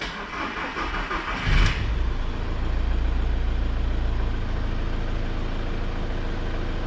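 Skoda Fabia 1.6 TDI diesel engine being started: the starter cranks for about a second and a half, the engine catches with a low bump, then settles into a steady idle.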